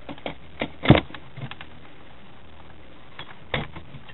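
Scattered clicks and knocks from hands and tools working on an opened stereo's circuit board and wiring, with the loudest knock about a second in and another near the end, over a faint steady hiss.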